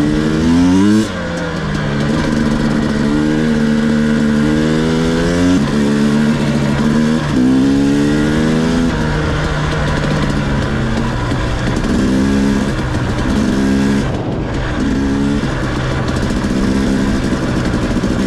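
Two-stroke dirt bike engine under way, revs climbing and then dropping suddenly several times as it is shifted or the throttle is rolled off. In the second half there are short on-off throttle blips.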